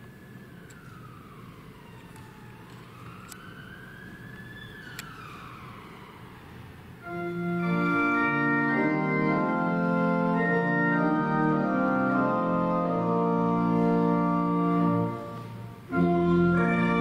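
A faint siren wails slowly up and down. About seven seconds in, a church organ comes in loudly with held chords, playing the introduction to a hymn, and breaks off briefly near the end before going on.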